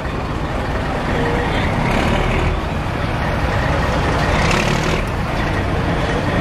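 Steady engine rumble and noise, like a heavy vehicle idling, at an even level with no sharp events.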